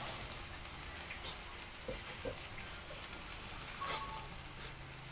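Chicken-heart skewers sizzling over a charcoal fire, with a steady hiss and scattered small crackles and pops.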